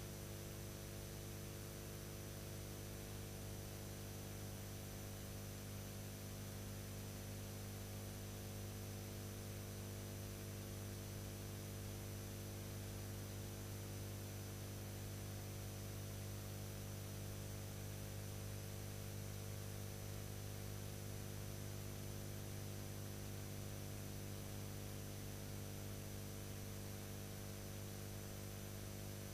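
Steady electrical mains hum with several even overtones over a constant hiss and a faint high whine: the noise floor of a silent film's transfer, with no other sound.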